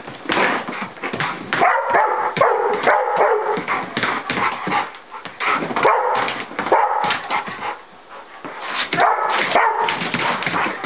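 Pit bull barking, yipping and whining excitedly as it pounces after a flashlight spot, with its paws scrabbling and thumping on a rug and wooden floor.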